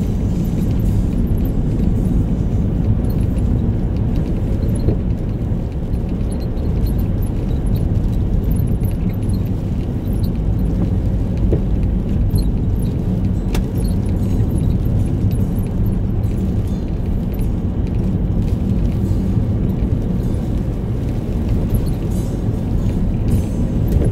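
Steady in-cabin noise of a 2010 Toyota Rukus driving: a low engine and road rumble, with a light high rattle over the top.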